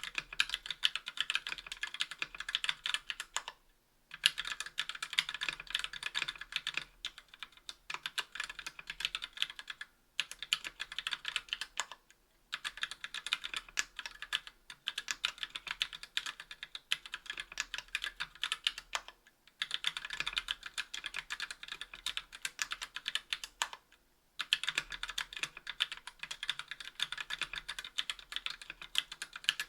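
Typing on a KBDfans Tofu60 aluminium-case keyboard with stock TTC Gold V2 Red linear switches and GMK keycaps: fast runs of keystroke clacks broken by short pauses about every few seconds.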